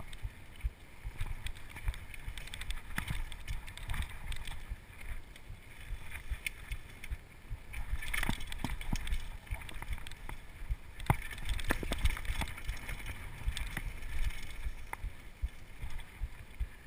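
Downhill mountain bike rattling over a rough trail, with irregular knocks and clatters from bumps, over a fluctuating low wind rumble on a chest-mounted GoPro's microphone.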